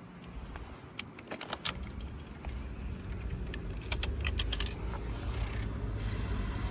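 BMW F800ST's 798 cc parallel-twin engine running with a steady low rumble, overlaid by two clusters of sharp, irregular metallic clicks and jingles; the owner suspects piston slap.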